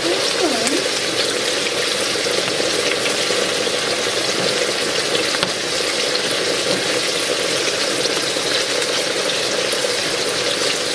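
Chicken pieces frying in olive oil in a hot pan, a steady sizzle, with a few light knife taps on a wooden cutting board as shiitake mushrooms are sliced.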